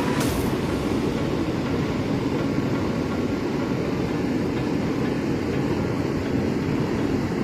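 Waterfall's falling water rushing steadily.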